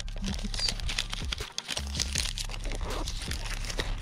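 Paper wrapper and backing of an adhesive plaster crinkling and rustling as they are handled and peeled close by, a dense run of small crackles.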